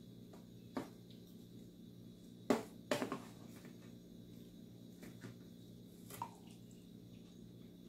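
Close-up eating sounds: a person chewing sautéed sardines with rice, with a handful of short wet smacks and clicks, the loudest a cluster about two and a half to three seconds in, over a steady low hum.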